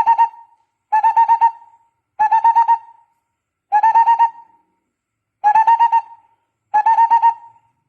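Barbet calling: repeated short phrases, each a quick run of about five hollow notes, coming about every second and a half.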